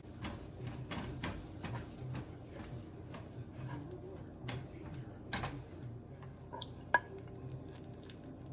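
Cooking utensil clinking and scraping against a frying pan: a run of irregular light clicks and knocks, with one sharper ringing clink about seven seconds in.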